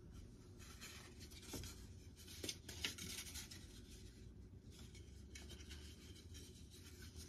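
Faint rustling and scraping, with a few light clicks in the first three seconds, as hands pick up and handle the model jet's plastic accessory parts.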